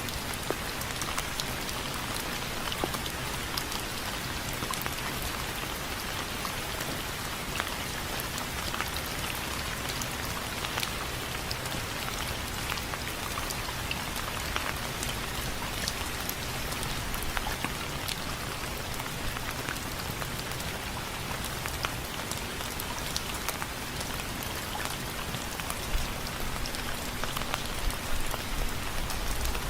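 Steady rain pattering on window frames, a constant hiss with many separate drops ticking sharply on the frame, a few louder splats near the end.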